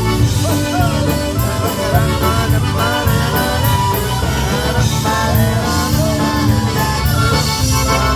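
Polka band playing an instrumental passage between sung choruses, with a steady beat, bass and a gliding lead melody.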